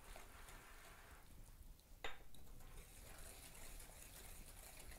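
A wire whisk stirring melted butter and sugar in a glass bowl, faint, with one sharp clink of metal against glass about two seconds in.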